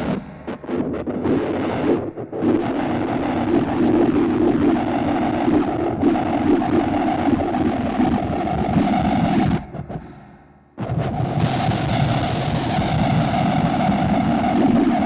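Ambient noise music: a dense, droning wall of noise with steady low humming bands. It stutters with brief dropouts in the first two seconds, fades down about ten seconds in, and cuts back in suddenly a second later.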